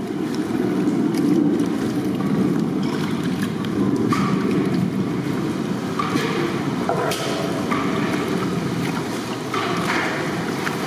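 Hands mixing a large pot of wet, marinated raw chicken pieces, with a few brief sloppy bursts, over a steady low rumble.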